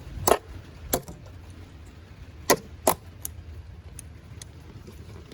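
Sharp knocks, some spaced and two close together, as a part of the truck's crankcase ventilation filter housing is struck and pushed into place by hand, because fingers alone are not strong enough to seat it.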